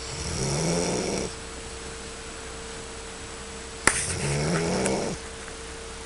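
Snoring: two long snoring breaths about four seconds apart, each lasting just over a second with a low rising rattle, the second one starting with a sharp click.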